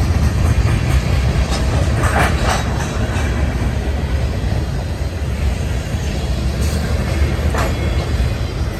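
Freight train cars rolling past at close range with a steady low rumble of wheels on rail. Brief bursts of clattering wheel noise come about two seconds in and again near the end.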